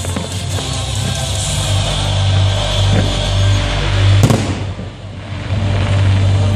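Music accompanying a fireworks display, with one sharp firework bang about four seconds in.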